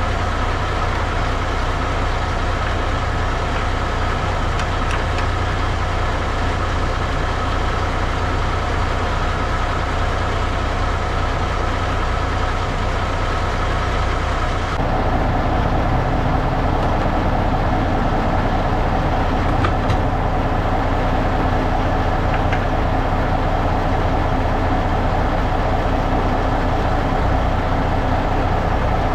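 Kenworth W900L semi truck's Cummins X15 diesel engine running steadily, with a deep low hum. Its sound changes abruptly about halfway through.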